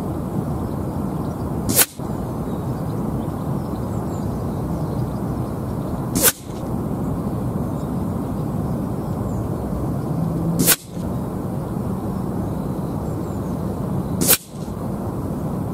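Four shots from a sub-12 ft-lb .177 pre-charged air rifle, each a sharp crack, spaced about four seconds apart. Between them, steady wind noise on the microphone.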